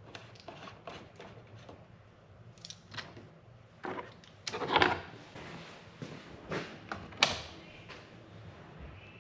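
Scattered light clicks and rattles of hands fitting the UTV's plastic hood bezel and front trim panels and their bolts, with louder clacks about five and seven seconds in.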